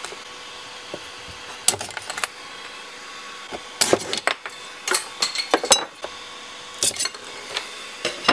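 Thin metal scraper prying and scraping 3D-printed plastic parts off an aluminium print bed: about five short clusters of sharp clicks and clinks as the parts pop loose, over a faint steady hum.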